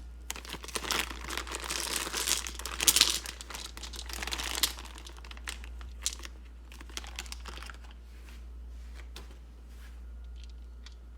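Crinkly packaging wrap being crumpled and torn open by hand for the first few seconds, then a few light clicks as small crystal stones are handled.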